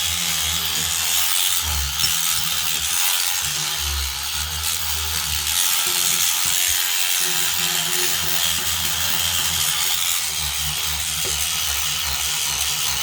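Battery-powered SonicScrubber cleaning brush running with its small soft-bristled head scrubbing a bathroom tap: a steady motor buzz under the rasp of bristles rubbing the surface.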